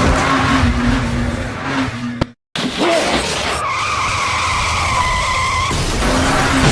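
Race-car sound effects: loud skidding and engine noise, which cuts out suddenly for a moment just over two seconds in. A steady high tyre squeal follows for about two seconds before the noise fills in again.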